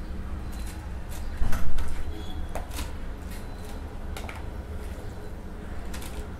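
Metal spoon scraping and tapping in a plastic bowl of wet onion-tomato topping and dropping it onto tortilla chips, in a series of short clicks and knocks, the loudest about a second and a half in. A steady low hum runs underneath.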